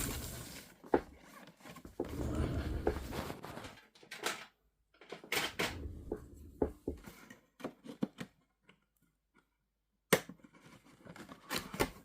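Packaging of a 1/18 diecast model car being opened by hand: scraping, rustling and sharp clicks and knocks as the box and its inner packing are handled. It stops for about two seconds near the end.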